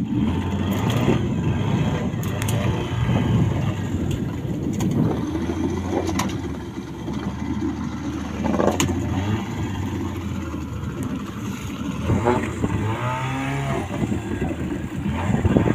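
Small wooden fishing boat's engine running steadily under way, a low hum with water and wind noise over it.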